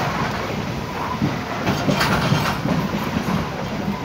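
Train rolling along the rails: a steady rumble with irregular wheel clatter, louder for a moment about two seconds in.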